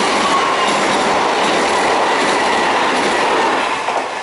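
Kintetsu Minami-Osaka Line electric train passing close by, its wheels rumbling and clattering on the rails over a faint whine that falls slightly in pitch. The noise drops away near the end as the last car passes.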